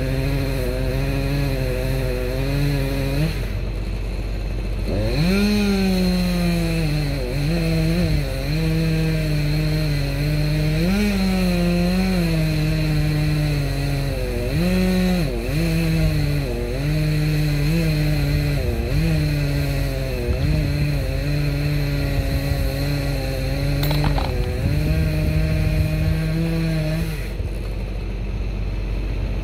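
A small two-stroke chainsaw engine running, revving up high and settling back to a lower speed with brief dips in pitch. It cuts out for a couple of seconds about three seconds in, then runs again until near the end.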